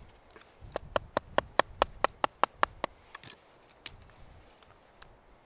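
A knife blade being tapped down into a small stick of dry wood to split it for kindling: a quick run of about eleven sharp wooden knocks, about five a second, then a few lighter clicks and one more sharp knock near the end.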